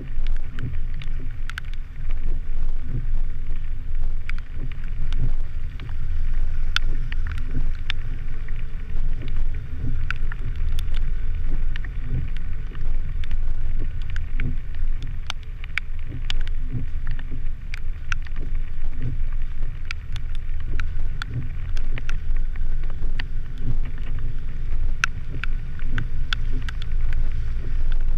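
Vehicle driving slowly over a rough, wet dirt road, picked up by a camera mounted outside on its body: a steady low rumble of engine, tyres and wind buffeting, with scattered sharp ticks and taps throughout.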